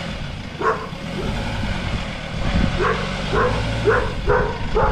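A dog barking repeatedly, once early and then in a run of about five barks roughly half a second apart in the second half, over the low steady running of a pickup tow truck's engine as it moves a car on its wheel-lift.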